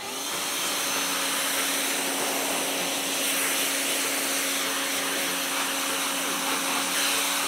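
Pressure washer running steadily, its motor humming under the hiss of the water jet spraying a muddy off-road tire.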